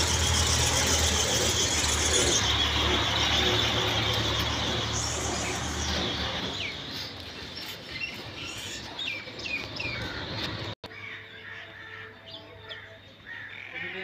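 A motor vehicle engine running, fading away over the first six seconds, then birds chirping with short falling chirps.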